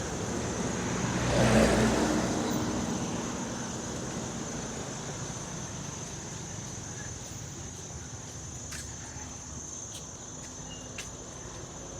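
A road vehicle passes, loudest about a second and a half in and then slowly fading away. A steady high-pitched insect drone runs underneath.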